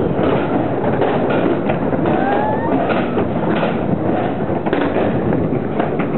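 Skatepark noise: skateboard and inline-skate wheels rolling on concrete under a steady rumble, with scattered clacks and thuds of boards and skates hitting the ground.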